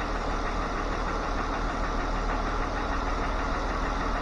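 2013 Jeep Wrangler Rubicon engine idling steadily while warmed up.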